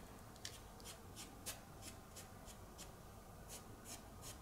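Foam brush spreading decoupage over a glittered acrylic keychain blank: faint, quick brushing strokes, about three a second.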